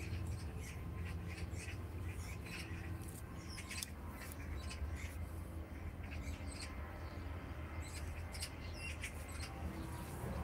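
Small birds chirping and twittering, many short high calls scattered throughout, over a steady low hum.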